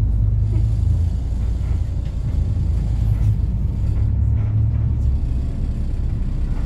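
Low, steady engine and road rumble of a moving bus, heard from on board; the deepest part of the rumble eases slightly about five seconds in.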